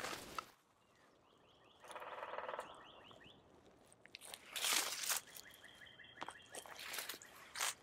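Hiking boots stepping slowly through dry pine needles and leaf litter: a few separate crunching footsteps, the loudest just under five seconds in. A short rapid trill from a small animal sounds around two seconds in.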